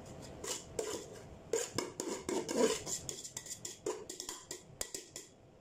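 A utensil scraping and clinking against a bowl and pot in a series of irregular strokes as cooked basmati rice is scooped out and spread in a layer over chicken for biryani. The strokes thin out near the end.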